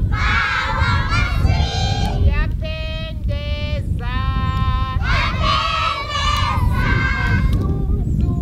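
A group of young children singing a circle-game song together. Twice near the middle a single high voice sings a line alone, and the group answers.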